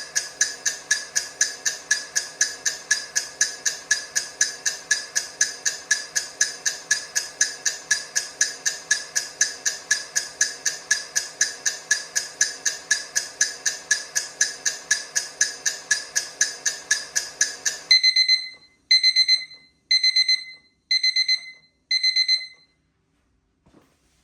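Countdown timer ticking fast and evenly, about four ticks a second, then stopping about 18 seconds in. A digital alarm follows, beeping in five quick groups about a second apart: the countdown has reached zero.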